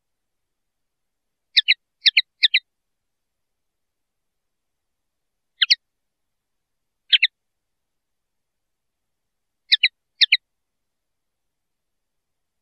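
Common linnet giving short, high double chirps in brief bouts. There are three in quick succession about a second and a half in, single ones around six and seven seconds in, and two near the end, with silence between.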